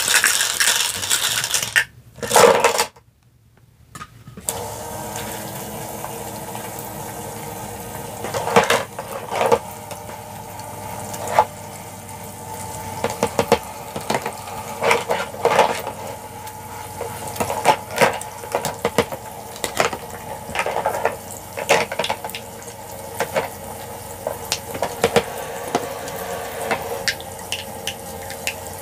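Water trickling from a battery-powered toy sink faucet over a steady hum from its small pump, with frequent light clacks of plastic toy dishes being rinsed and set into a plastic dish rack. The hum and trickle start about four seconds in.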